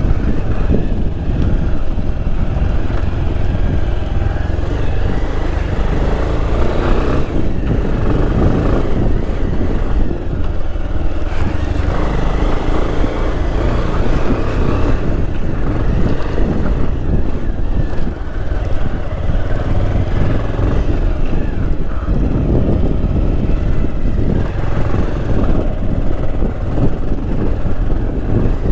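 Motorcycle engine running steadily as the bike rides slowly along a rough dirt road.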